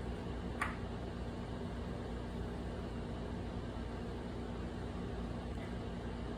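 Steady room hum with a faint held tone, and a single sharp click about half a second in as a small magnet snaps onto the magnetic chalkboard wall.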